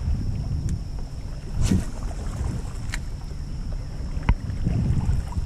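Wind rumbling on the microphone in an open canoe on a creek, with a few sharp knocks and clicks about a second apart as fishing gear moves against the boat. A faint steady high whine runs underneath.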